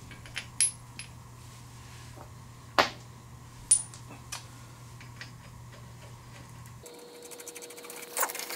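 Scattered metallic clinks and taps from metal parts and tools being handled while a wheel hub is refitted, a few with a short high ring. A quick run of small clicks comes near the end.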